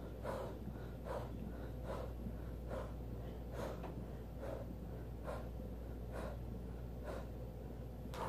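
A man's short, forceful breaths, one with each push-up, about ten in a row at a steady pace of just under one a second: hard breathing from the effort of a long push-up set.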